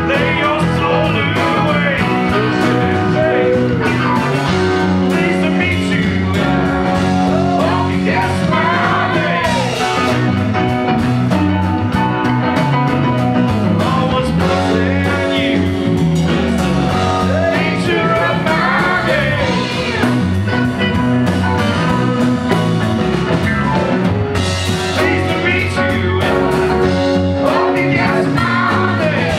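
Live rock band playing a song in a small club: electric guitars, bass, drum kit and keyboards, with sung vocals coming in and out over the band.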